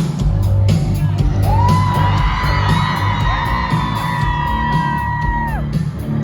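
Rock band music that comes in suddenly and loudly at the start, with drums and heavy bass. A long held high vocal note slides up about a second and a half in, is held for about four seconds, and drops away near the end.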